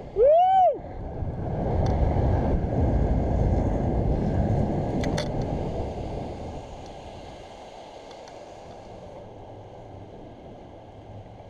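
A short yell from the swinger, rising then falling in pitch, then wind rushing over the rope-mounted action camera's microphone as he swings through the canyon. The rush is strongest for the first few seconds and then eases to a steady, quieter rush.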